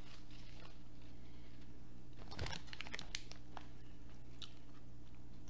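A person chewing food close to the microphone, with a few soft crunchy clicks about two to three and a half seconds in, over a steady low hum.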